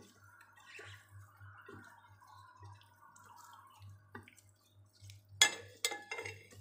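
Wet squishing of raw spice-rubbed chicken pieces being mixed by a gloved hand on a plate. A few sharp knocks come near the end, the loudest about five and a half seconds in.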